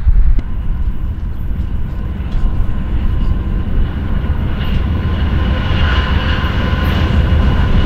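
Approaching BNSF diesel locomotives running under power, a steady engine whine that grows louder toward the end, over a low rumble with wind on the microphone.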